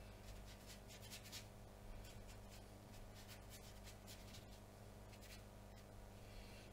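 Very faint swishing of a watercolour brush stroked over wet watercolour paper, a few soft strokes, over a low steady hum.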